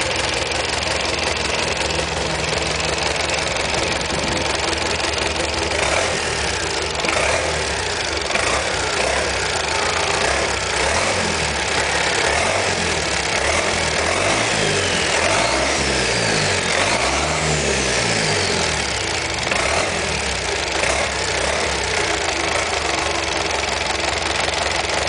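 Rebuilt Maxion S4T four-cylinder turbo diesel running on a test stand, idling with its pitch rising and falling a few times in the middle as the throttle is worked.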